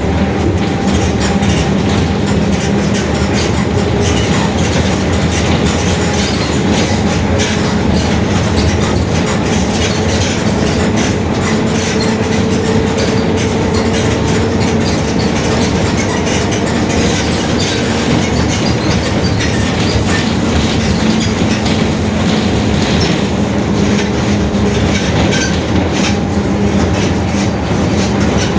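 Mercedes-Benz OF-1721 city bus under way, its rear differential droning very loudly in steady tones over the running noise, with constant rattling.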